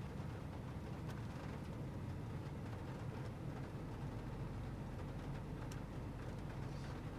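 Steady low rumble of a Toyota Sienta on the move, road and drivetrain noise heard from inside the cabin, with a few faint ticks.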